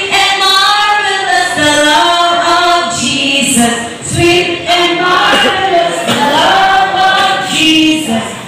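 Singing: voices carrying a melody in long held notes that slide from pitch to pitch.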